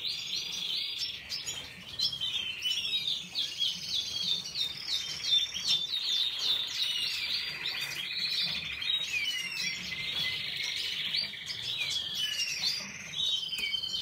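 Canaries chirping and twittering in a dense, continuous run of rapid high-pitched calls.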